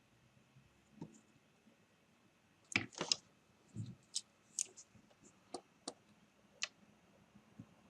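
Faint, scattered clicks and light taps from small hand work on a laptop power adapter's circuit board during soldering. A cluster of them comes about three seconds in.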